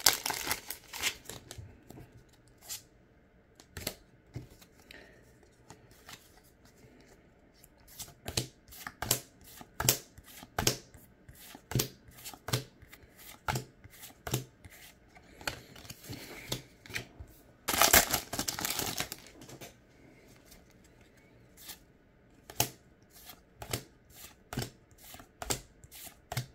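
A Pokémon booster pack's foil wrapper torn open, then the trading cards flicked one behind another, a short sharp card snap about every half second, with a longer rustle of cards and wrapper in the middle.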